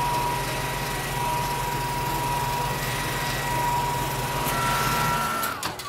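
Car-wash air dryers blowing: a steady rush of air with a high whine and a low hum, which winds down with a falling whine shortly before the end.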